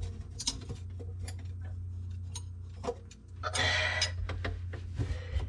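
Scattered light clicks and taps of parts being handled while the old garbage disposal and its under-sink plumbing are taken apart, with a brief scraping rustle about three and a half seconds in, over a steady low hum.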